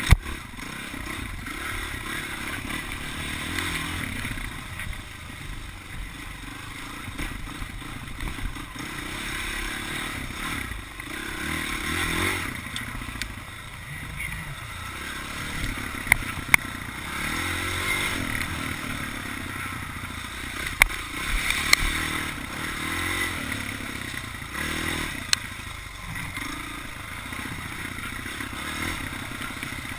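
Dirt bike engine running under way, its pitch rising and falling as the throttle is worked, with a few sharp clacks.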